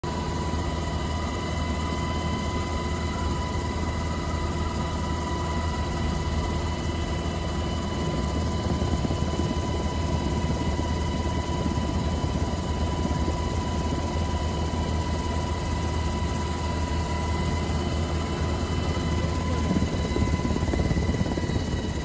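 Coast Guard helicopter heard from inside its cabin: a steady rotor and engine drone with a constant high whine over it.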